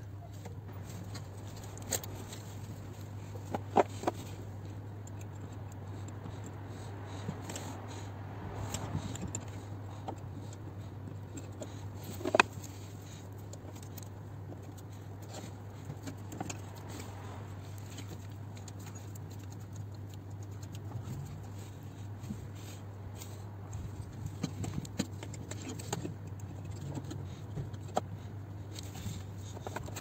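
Scattered metallic clinks and knocks of hand tools and fittings being worked on the turbocharger, the loudest knock about twelve seconds in and quicker small clicks near the end, over a steady low hum.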